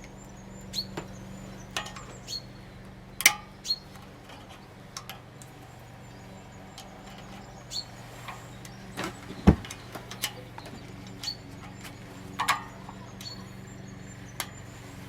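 Irregular clicks, taps and knocks of hands and tools working a wiring cable and its connector loose from a motorcycle frame, over a steady low hum. The sharpest knocks come about three and nine and a half seconds in.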